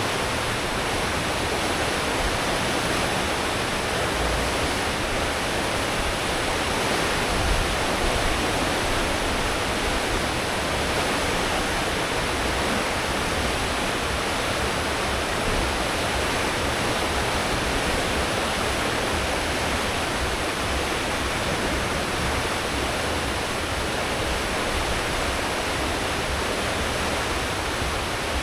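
Water churning in a cruise ship's wake at full speed: a steady rushing, with a low rumble underneath from the ship's engines and propellers.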